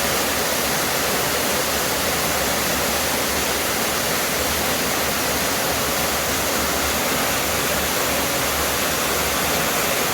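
Waterfall pouring into a rock pool close by, a steady, loud rush of falling water.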